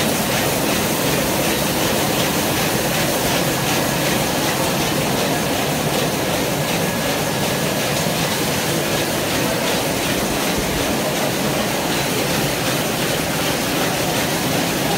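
Servo-driven square-bottom paper bag making machine running steadily at production speed: a continuous, dense mechanical clatter.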